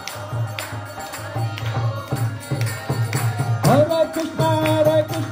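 Kirtan music: harmonium and a double-headed mridanga drum keeping a steady beat, with hand clapping. A little past the middle a voice comes in, holding one long sung note.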